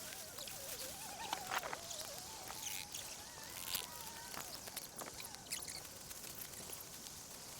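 Scattered light clicks and rustles of tent gear being handled during setup, over a hissy outdoor background. A faint wavering tone is heard in the first couple of seconds.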